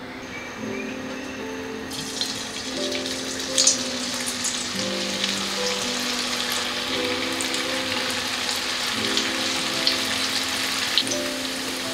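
Batter-coated soya chunks deep-frying in hot oil in a wok: a dense, crackling sizzle with sharp pops. The sizzle starts about two seconds in and carries on steadily.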